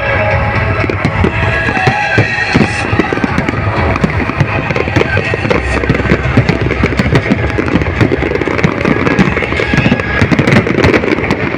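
Fireworks going off in a rapid barrage of bangs and crackles, densest near the end, with music playing underneath.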